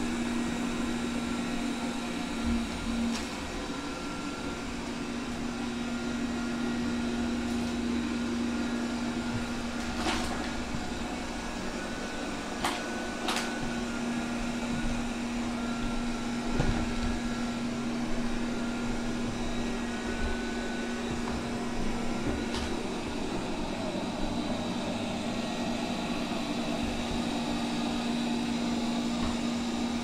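Honiture Q5 robot vacuum cleaner running on its vacuum cycle: a steady motor hum with a constant low tone, broken by a few short clicks.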